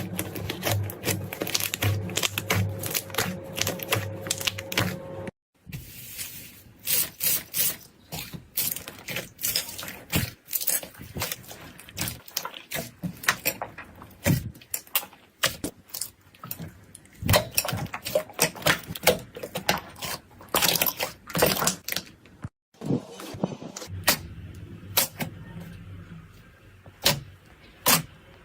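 Slime being squeezed and poked, giving a steady stream of sharp crackling clicks and pops.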